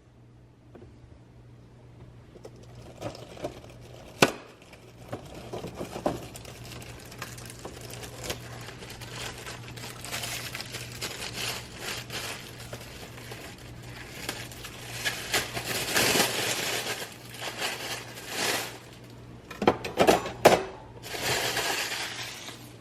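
Objects being handled: rustling and crinkling, with scattered clicks and light knocks that grow busier in the second half, over a steady low hum.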